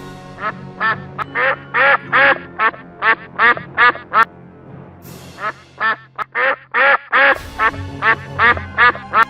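An animal call repeated in two quick runs of about ten short calls each, roughly three a second, over background music.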